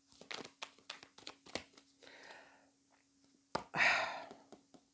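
Animal oracle cards being handled: a run of light clicks and rustles, then a louder rustle about three and a half seconds in.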